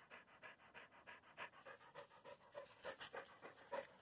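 Blue heeler panting hard, faint and quick at about four breaths a second: the dog is out of breath from running after the ball.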